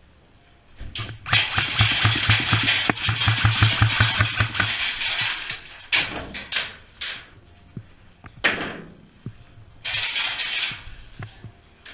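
Airsoft electric gun firing a long full-auto burst, a rapid even rattle of shots over the buzz of the gearbox. It is followed by a few shorter bursts of noise.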